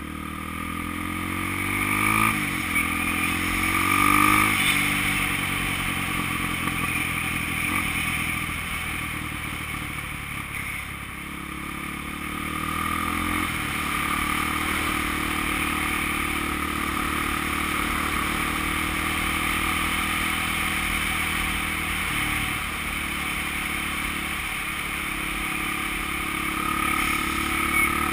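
Honda XR200 dirt bike's single-cylinder four-stroke engine under way, rising in pitch twice in the first few seconds as it accelerates through the gears, then running at a fairly steady cruising speed.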